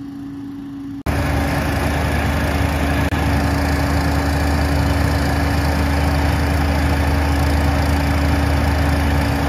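Cyclone Rake leaf vacuum running, with its intake hose off: a loud, steady engine drone with the even rushing of its impeller fan. It is quieter for the first second, then loud from about a second in.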